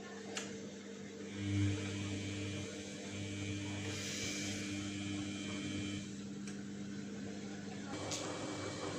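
Samsung WF1600WCV washing machine running a wash cycle: a low motor hum comes in about a second and a half in as the drum turns, then runs steadily, with a few short clicks.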